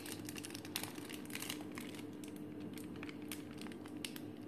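Soft crinkling and small crackles of a plastic piping bag being squeezed as chocolate spread is piped out, over a steady low hum.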